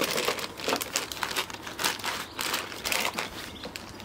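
Clear plastic pastry bag crinkling and rustling in irregular crackles as it is handled and filled with avocado puree.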